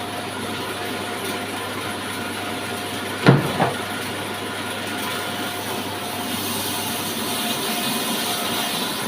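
Horizontal sawmill machine running steadily, with a sharp knock a little over three seconds in and a smaller one just after.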